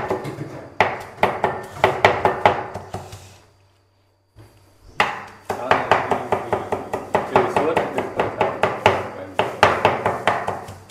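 Heavy cleaver rapidly chopping cooked pork offal and cartilage on a round wooden chopping block, several strokes a second, with a short break about four seconds in.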